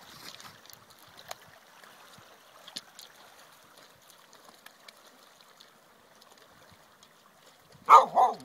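Small waves lapping on a pebble shore, with occasional clicks of stones underfoot. Near the end, a dog barks sharply twice in quick succession.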